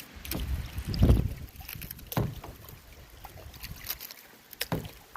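A kayak on a river: a paddle splashing in the water and knocking against the boat at uneven intervals. A loud low thump comes about a second in.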